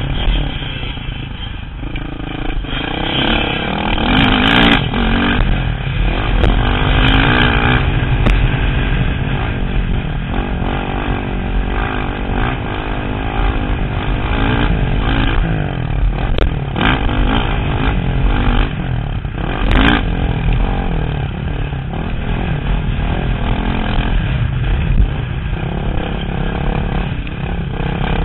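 Motocross dirt bike ridden hard, recorded from the rider's helmet: the engine revs up and down through the gears, with wind rushing over the microphone and a few short knocks over the bumps.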